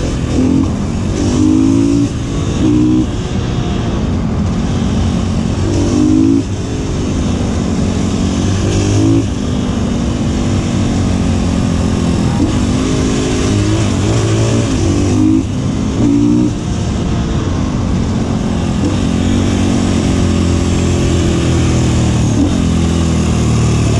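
Supermoto motorcycle engine heard on board, its revs climbing and dropping back again and again as the rider works through the gears and bends, over a steady rush of wind noise.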